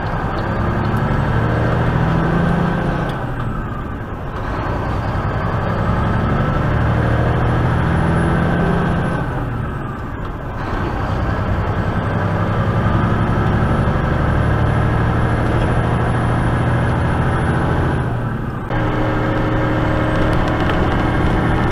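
Semi truck's engine and road noise heard inside the cab while driving on the highway. The sound dips briefly twice, about 4 and 10 seconds in, and changes abruptly a few seconds before the end.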